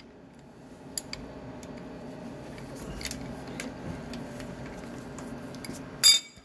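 Light, scattered metallic clicks of hand tools being handled, with a louder clatter near the end, over a steady low hum.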